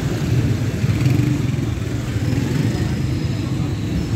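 Street traffic noise, mostly the low, steady rumble of motorcycle engines running.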